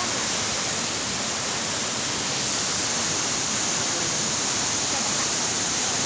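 Tall waterfall's plunging water making a steady, unbroken rush.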